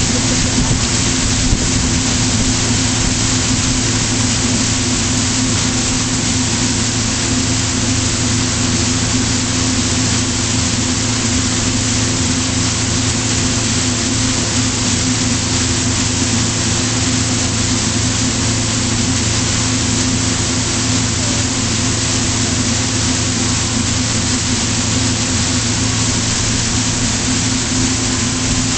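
Pontoon boat's engine running steadily at full throttle, its even drone mixed with a constant rush of wind and water.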